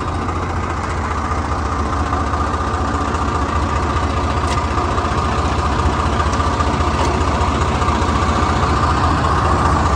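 Tractor diesel engine running steadily with a low rumble, slowly getting louder.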